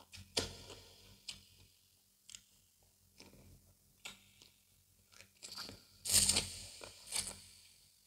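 Close-miked eating sounds: mouthfuls of fufu with egusi soup being bitten and chewed in irregular bursts, loudest about six seconds in.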